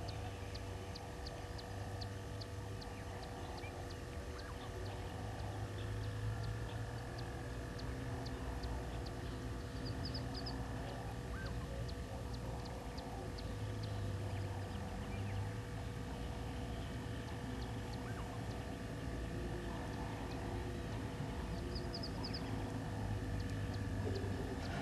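Outdoor waterhole ambience: a steady low hum under a regular high ticking, about two or three ticks a second, with a brief high trill twice.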